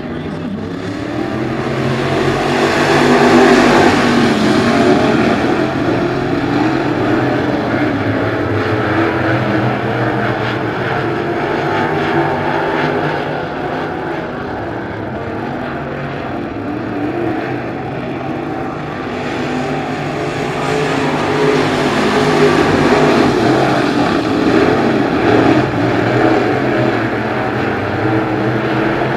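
A field of crate late model race cars running at racing speed, their V8 engines loud and continuous, swelling twice as the pack comes past.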